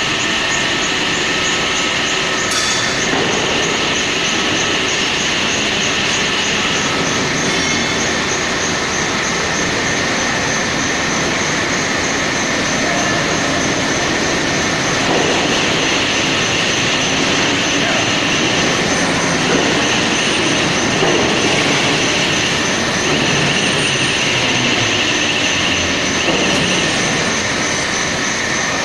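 CNC-controlled 350-ton horizontal hydraulic wheelset press running, pressing a railway wheel onto its axle: a loud, steady high whine with a squeal that comes and goes, and a single click about two and a half seconds in.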